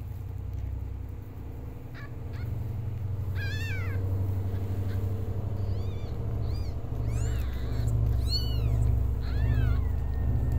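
Newborn kittens mewing: a series of short, high-pitched mews that rise and fall, starting about three and a half seconds in and coming more often near the end, over a steady low rumble.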